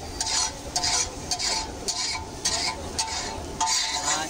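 Metal spatula scraping and stirring scrambled egg bhurji across a large flat iron griddle (tawa), in a rapid series of short strokes about two to three a second.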